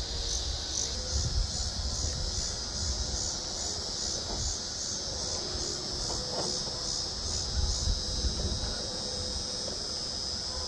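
Insects chirping outdoors in a steady pulsing rhythm, about three pulses a second, over a constant high buzz. The pulses fade out near the end while the buzz carries on, with a low rumble underneath.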